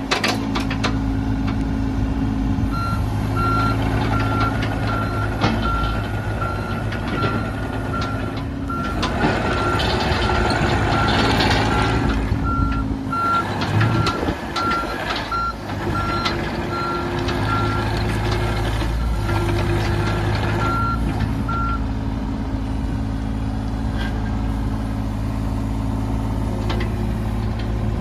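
John Deere 35G mini excavator with its diesel engine running steadily under hydraulic load. Its travel alarm beeps about once a second from about three seconds in, stopping about three-quarters of the way through as the machine tracks. Machine noise swells for a few seconds around the middle.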